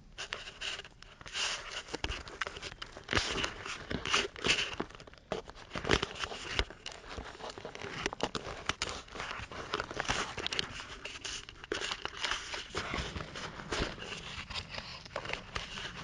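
Handling noise on a small onboard camera's microphone: fingers rubbing and scratching over the camera body and lens, an irregular run of scrapes, crackles and clicks.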